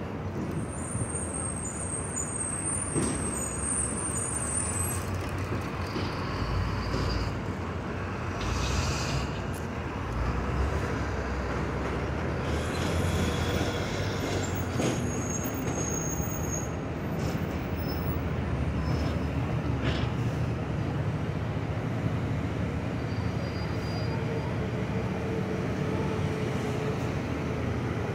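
City street traffic: buses and cars running and passing, a continuous rumble with a steadier low engine hum in the second half.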